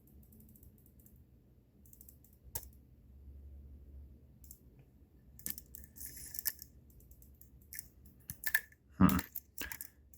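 Lock pick working the pins of a pin-tumbler challenge lock: small, sparse metallic clicks, with a brief scrape about six seconds in and a few sharper clicks near the end.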